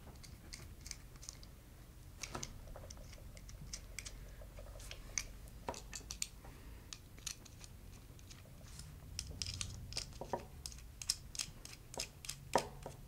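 Aluminium standoffs being handled and threaded onto screws sticking out of a plastic hub pulley: scattered light clicks and taps of metal parts, coming quicker in the last few seconds.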